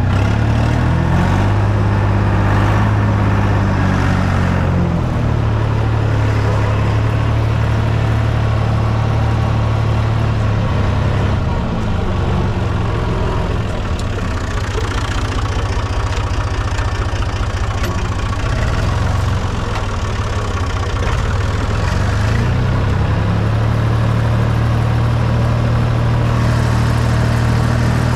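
Fiat Someca 500 tractor's diesel engine running steadily while plowing. Its pitch climbs over the first few seconds, sags somewhat in the middle and picks up again near the end.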